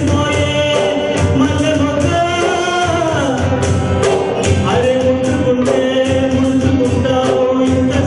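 A man singing a Telugu song into a microphone, holding long notes, with instrumental accompaniment and a steady beat.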